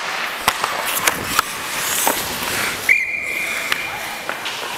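Hockey sticks clacking and skates scraping on the ice at a faceoff, then a referee's whistle blown as one steady shrill blast of about a second and a half, starting about three seconds in, stopping play.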